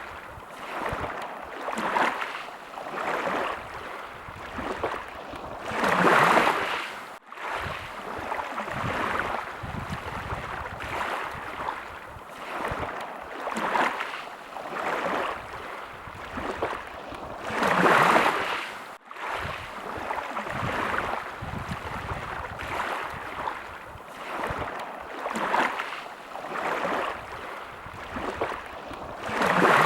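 Small sea waves washing in, a soft swell about once a second, with a bigger wave surging twice, each cutting off suddenly.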